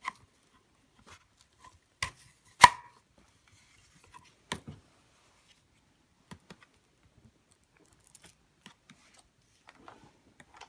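Hard plastic vacuum parts being handled, giving a series of sharp clicks and knocks, the loudest a little over two and a half seconds in, then fainter taps and rustles.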